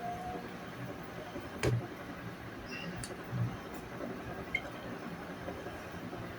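A few faint, scattered clicks and soft knocks of kitchenware as rice is dished out.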